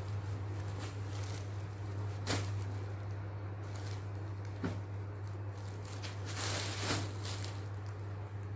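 Folded sarees being lifted and shifted by hand: cloth rustling with a couple of soft knocks, and a louder stretch of rustling near the end, over a steady low hum.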